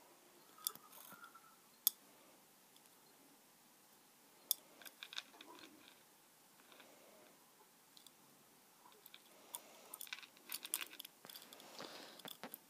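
Light clicks, taps and rustling of a small cardboard box and its packaging being handled and turned over, in scattered clusters that are busiest near the end.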